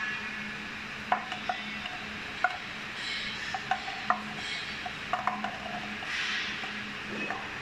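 Light paper cups knocking and rattling in short irregular taps on a perforated metal raised-floor panel as underfloor cooling fans blow air up through it. The fans' steady low hum runs underneath.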